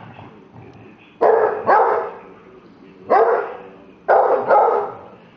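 Dog barking: five loud barks in three bunches, two about a second in, one a little after the middle, and two near the end.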